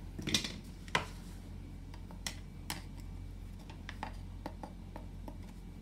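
A hammer taps a flathead screwdriver twice in the first second, driving the blade under the metal lock cap on the axle of a Stokke Xplory front wheel. This is followed by lighter, scattered clicks of the screwdriver blade levering at the cap.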